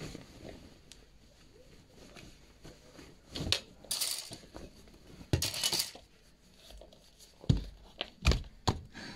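Clothes being handled and taken off hangers: fabric rustling and crumpling, with several sharp knocks and clatters, most of them in the second half.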